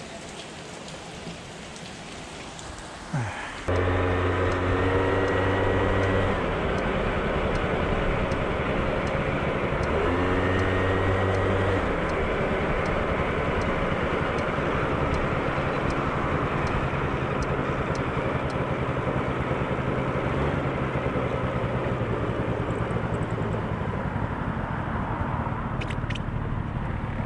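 Suzuki Address V100 scooter's two-stroke single-cylinder engine starting about three seconds in, revved up twice, then running steadily at idle: a test run after the gearbox bearing replacement. Steady rain-like hiss before the engine catches.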